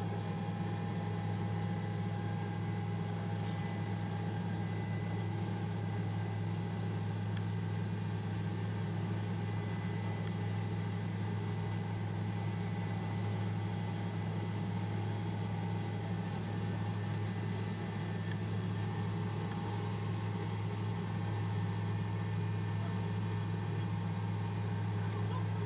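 Helicopter engine and rotor noise heard from inside the cabin: a steady low drone with a few faint steady higher tones, unchanging throughout.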